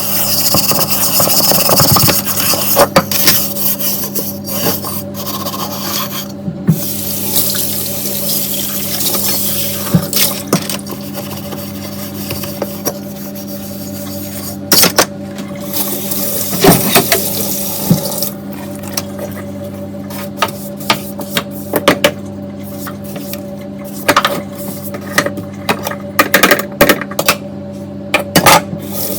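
Dishes being washed by hand at a sink: scrubbing and rubbing, tap water running in spells, and frequent sharp clinks and knocks of dishes being handled. A faint steady hum lies underneath.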